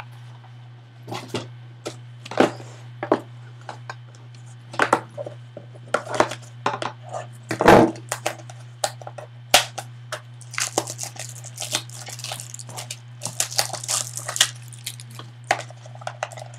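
Sealed trading-card packs being handled and set down on a table: scattered taps and knocks of cardboard, one louder knock about halfway through, and crinkly rustling of the pack wrappers from about two-thirds in. A steady low hum runs underneath.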